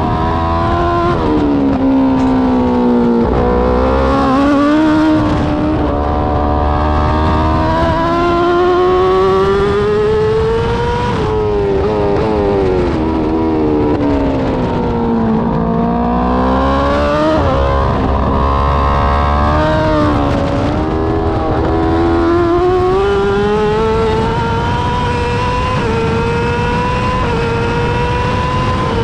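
BMW M 1000 RR superbike's inline-four engine at racing speed on board: the engine note drops twice as the bike brakes into corners, then climbs again in steps as it pulls through the gears, with a long rising pull near the end.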